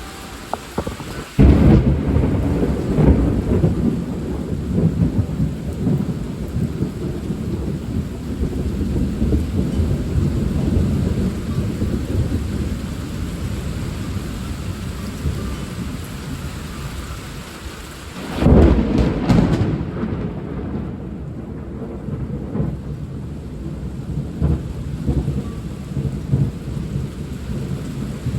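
Thunder: a sharp thunderclap about a second and a half in, rolling into a long low rumble, then a second clap and rumble past the middle. Steady rain runs underneath.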